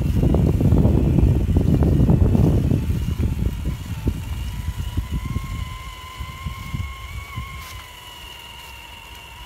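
TRX-4 RC crawler's electric motor whining faintly as it creeps along towing a trailer. For the first three seconds a louder low rumble with scattered knocks covers the whine, then fades out.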